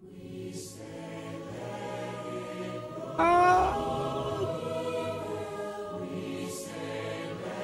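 Choir singing sustained chords over backing music. About three seconds in, a louder swell comes in with a rising sung note.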